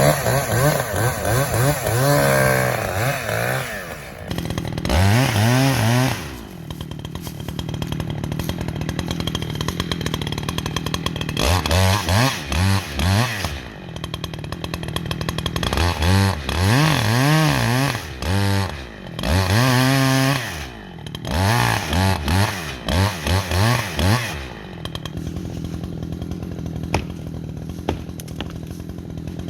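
Chainsaw engine running, repeatedly revved up to high speed and let back down to a lower run between bursts.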